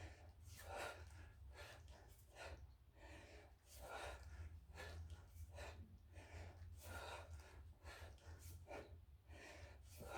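Hard, rhythmic breathing of a man lifting a kettlebell over and over, a rush of breath roughly every half second to second, over a faint steady low hum.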